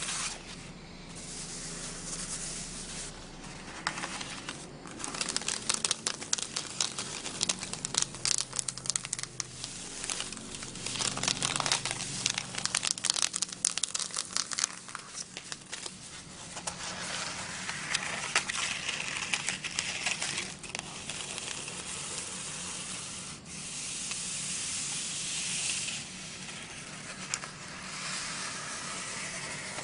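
Hands rubbing and shuffling sheets of crinkled, textured art paper. A dense crackling runs through the middle stretch, then gives way to a softer, steadier rustle.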